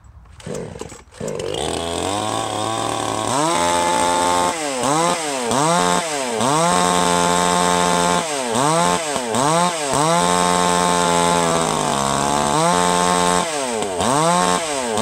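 A 52cc two-stroke Chinese clone chainsaw on its first start fires up about a second in, idles briefly, then is revved up and down over and over, held at high revs in between.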